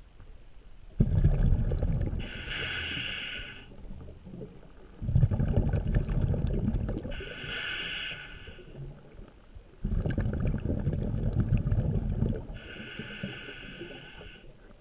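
Underwater breathing through a diver's regulator: three breaths about five seconds apart. Each is a low bubbling rush followed by a brief higher hiss.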